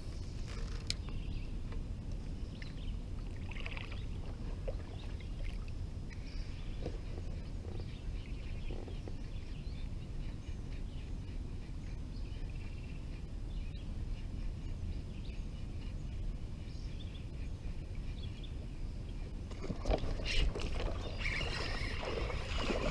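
A steady low rumble with faint bird chirps, then about three seconds before the end a burst of splashing as a bass hits the frog lure and thrashes at the surface on the bent rod.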